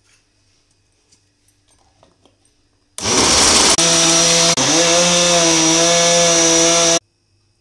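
Electric countertop blender motor running at full speed, blending mango chunks with ice cubes and water into juice. It starts suddenly about three seconds in, stutters briefly, dips in pitch and then holds steady, and cuts off abruptly after about four seconds.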